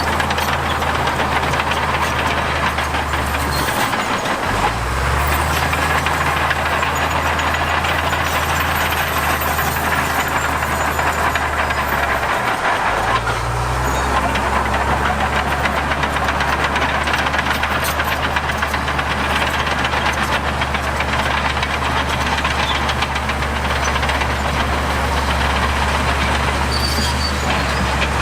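Diesel engine of heavy earthmoving machinery running under load. Its low note dips and recovers twice, about 4 seconds in and again about 12 seconds in, then holds steady.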